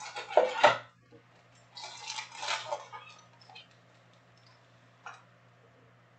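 Foil-wrapped trading-card packs and a cardboard box being handled and stacked on a table: sharp clattering knocks in the first second, a rustle of packs being shuffled about two to three seconds in, and a single tap near the end, over a faint steady low hum.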